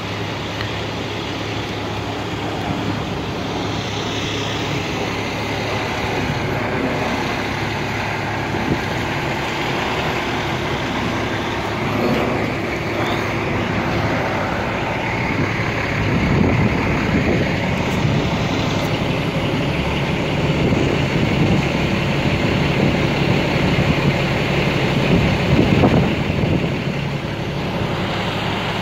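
Heavy trucks' diesel engines idling steadily, a constant low engine hum that grows a little louder in the second half.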